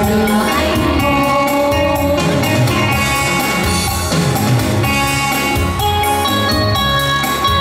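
Instrumental break of a song's accompaniment: band music with a steady beat, without the vocals.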